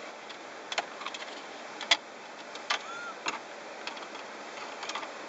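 Scattered clicks and light knocks of trim screws being driven by hand with a screwdriver into the car's plastic console trim, the sharpest click a little under two seconds in, with a brief squeak near the middle.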